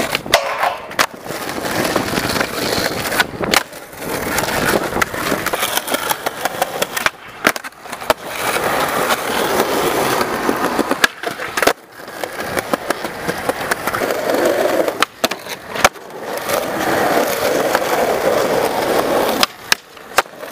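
Skateboard wheels rolling over rough asphalt and concrete, with sharp clacks of the board popping and landing. The rolling stops and starts abruptly several times.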